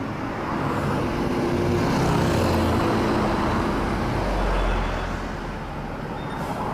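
Road traffic with a motor vehicle driving past: engine and tyre noise builds over the first second or two, holds, then fades after about five seconds.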